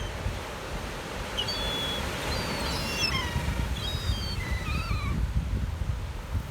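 Gulls calling: a series of short, high cries, several overlapping in the middle, some dropping slightly in pitch, over a steady low rumble.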